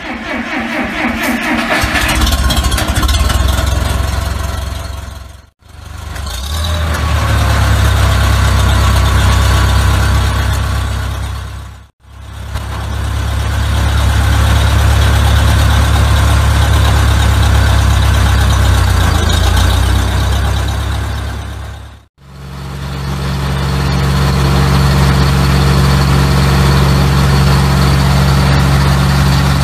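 Old Case tractor engine running as the power unit of a circular sawmill, heard as four joined stretches with brief dropouts between them; it builds up near the start and settles into a steady run for the last several seconds.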